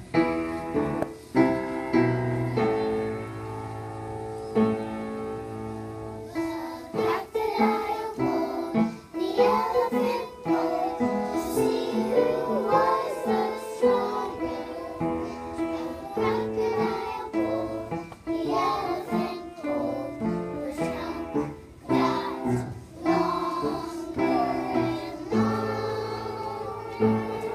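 A children's song: keyboard notes alone at first, then a child's singing voice comes in about seven seconds in and carries on over the keyboard accompaniment.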